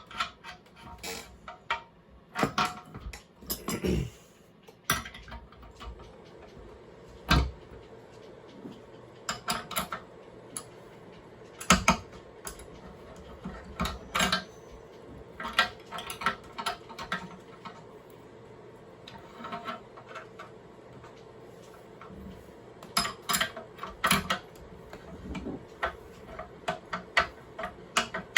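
Ratchet wrench clicking in short runs, with metal clinks and knocks, as a bolt is tightened through solid aluminum subframe bushings to draw them into place.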